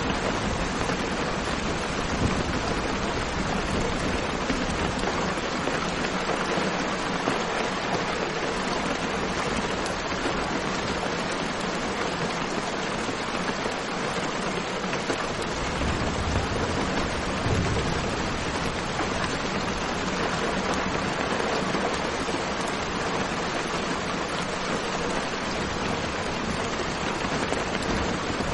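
Steady rain falling in a thunderstorm: an even, dense hiss, with a low rumble swelling briefly about halfway through.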